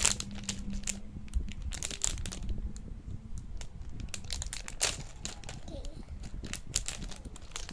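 Plastic packaging being handled while a Lego set is unboxed: irregular crinkling and crackling with scattered sharp clicks.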